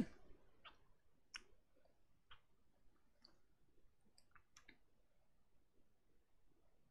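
Near silence broken by about seven faint, short clicks over the first five seconds, a few of them close together about four seconds in.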